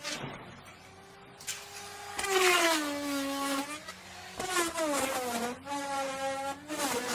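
Electric wood router running, its motor whine sagging in pitch each time the spinning bit bites into the wood and recovering between cuts. It is quieter for the first second or two, then the pitch drops under load about two seconds in, again past four seconds, and once more near the end.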